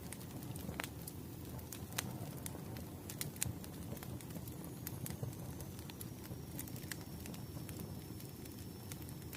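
Wood fire burning in a fireplace: a steady low rumble of flames with frequent sharp crackles and pops from the logs, the loudest about two and three and a half seconds in. A faint thin high whistle comes in about halfway.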